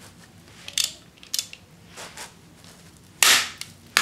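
Socket wrench with an extension on a 12 mm 12-point bolt inside the coolant jacket of a Subaru EJ25 engine block: a few light clicks, then one loud, sharp crack about three seconds in as the bolt breaks loose, and a short click near the end.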